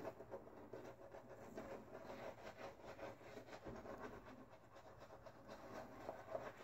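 Faint scratchy rubbing of a shaving brush working lather over a bearded cheek and jaw, in irregular strokes a few times a second.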